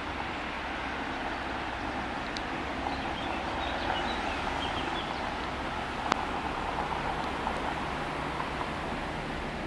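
Diesel locomotive approaching slowly with a steady engine hum that grows a little stronger in the second half. Birds chirp a few seconds in, and there is a single sharp click about six seconds in.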